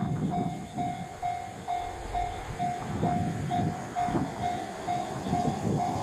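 Level-crossing alarm ringing its electronic bell tone about twice a second, over the uneven rumble of a 1500-series diesel railcar running through the crossing.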